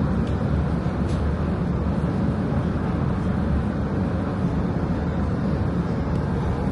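Steady low rumble of vehicle noise, with no distinct events.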